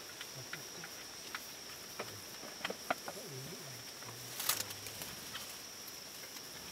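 Forest ambience: low, soft bird calls that rise and fall a few times, over a steady high-pitched hum. Scattered light clicks and one brief rustle about four and a half seconds in.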